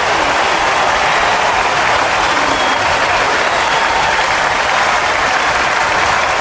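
A large crowd applauding and cheering: dense, steady clapping with voices calling out over it.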